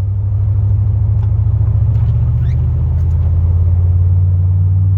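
Chevrolet Silverado pickup's engine running steadily under plowing load, heard from inside the cab as a low drone that swells slightly in the middle.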